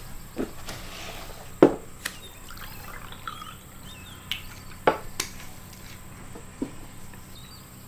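Quiet ambience with a handful of short, sharp knocks or clicks spread irregularly through it, and faint high chirps in the middle.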